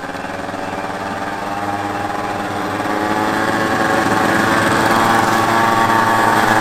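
Small motor scooter engine running at a steady speed, growing gradually louder as it approaches.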